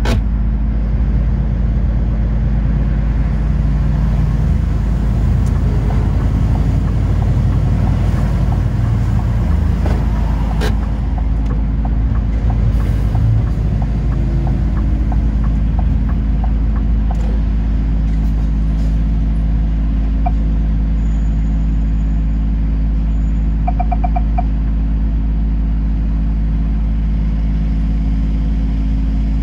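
Steady low engine drone and road rumble heard inside the cabin of a large moving vehicle, with a sharp click about a third of the way through and a brief beeping about two-thirds through.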